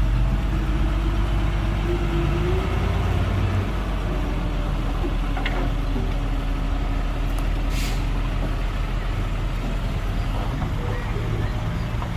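Heavy diesel machinery engine running steadily, with a short air-brake hiss from a dump truck about eight seconds in.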